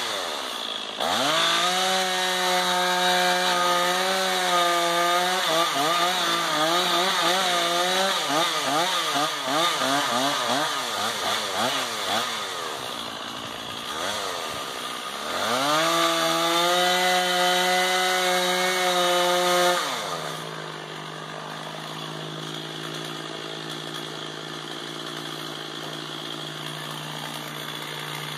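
Two-stroke chainsaw revving up to full speed and held there. Its pitch wavers up and down for a few seconds while it is worked in the cut, then it revs high again before dropping to a steady idle for the last third, and it revs up once more at the very end.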